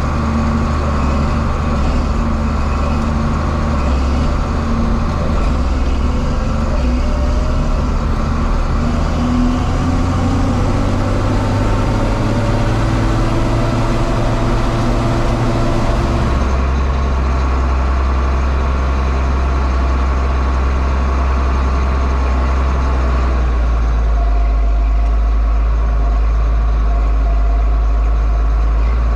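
John Deere 4250 tractor's six-cylinder diesel running steadily while baling hay with a Kuhn round baler, with a faint rising whine in the first half. A little past halfway the sound changes abruptly to a deeper, heavier hum.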